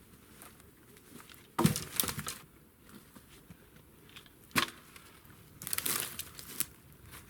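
Sharp knocks and cracks of dry wood being handled and broken: a loud crack about a second and a half in, another near the middle, and a short rattle of smaller knocks and crackles a little later.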